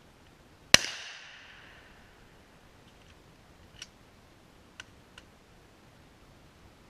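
A single gunshot, sharp and loud, with a ringing echo that fades over about a second. A few faint clicks follow later, typical of gun handling.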